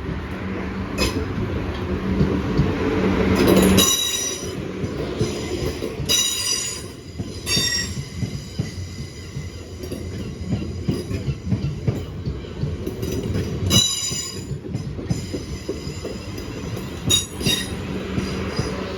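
A train passing close by over the level crossing, its wheels squealing again and again on the rails, with clicks of wheels over the rail joints. It rumbles louder over the first few seconds, then the squeals come in repeated high-pitched bursts.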